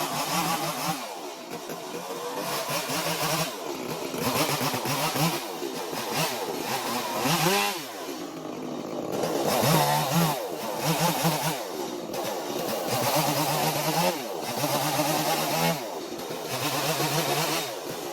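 Stihl two-stroke chainsaw running and being revved up and down over and over as it carves wood, its pitch rising and falling every second or two.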